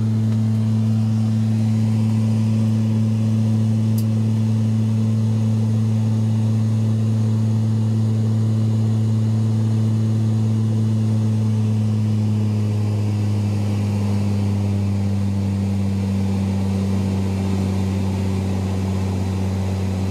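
The Saab 2000's Rolls-Royce AE 2100 turboprops and six-blade propellers are heard from inside the cabin during the climb: a loud, steady propeller drone with a strong low hum. About twelve seconds in, the drone drops slightly in pitch and gets a little quieter.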